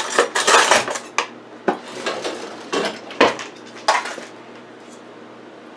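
Metal muffin tin clattering on the countertop as it is handled, a run of sharp clanks and rattles that stops about four seconds in.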